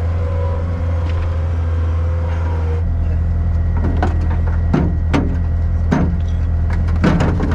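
Skid-steer loader engine running steadily. From about four seconds in, several sharp knocks sound as chunks of broken driveway are handled and dropped in front of the machine.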